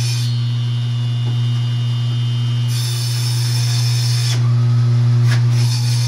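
Table saw running with a steady motor hum while its blade rips a sheet of OSB. The hiss of the cut grows louder and softer as the sheet is pushed through.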